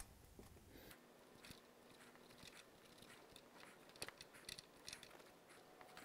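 Near silence, broken by a few faint, short metal clicks and scrapes around four to five seconds in: a screwdriver and feeler gauge working an exhaust-valve lash adjuster on a Honda 3.5-litre V6's rocker arm, set by feel for a light drag.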